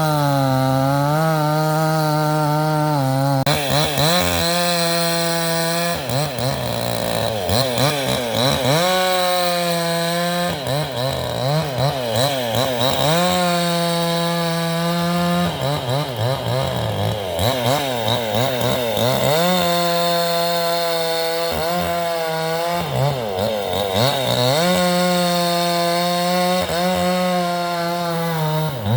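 Vevor 62cc two-stroke chainsaw with a 20-inch bar cutting through ice-laden wood. The engine runs at a steady high speed, then drops and wavers each time the chain bites into the log, about five times over.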